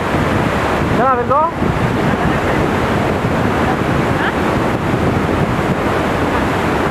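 Large waterfall rushing onto rocks: a loud, steady, dense wash of falling water. A short pitched voice call cuts through it about a second in.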